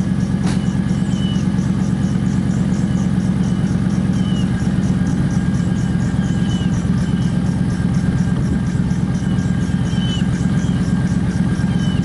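An engine running steadily at idle, with a fast even pulsing and a faint high ticking.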